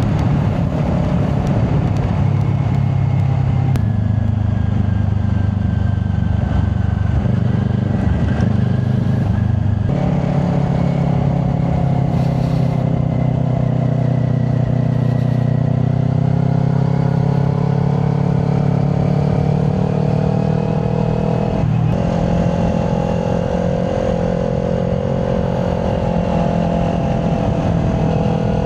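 Kawasaki Ninja 400 parallel-twin with a Yoshimura aftermarket exhaust, running steadily under way. Its engine note steps to a new pitch about 4, 10 and 22 seconds in, as revs change through the ride.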